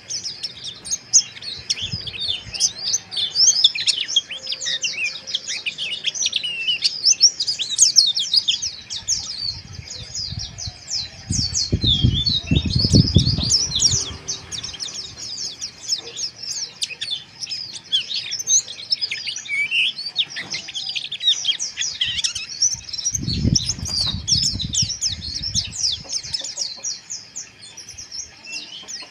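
Pleci (white-eyes) twittering in a fast, dense, rough chatter of high overlapping chirps: the 'ngeriwik' song. Twice, a low rumble lasting a couple of seconds sounds under the birds.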